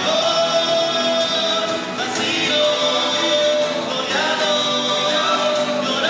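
Live Chilean nueva canción ensemble: several male voices singing long held notes in harmony over acoustic guitars, the chord changing about every two seconds.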